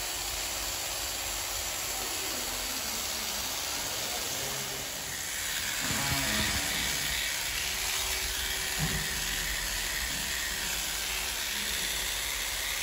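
Corded electric pet hair clippers running steadily while shaving a puppy's fur, a steady buzzing hiss that grows a little louder about halfway through.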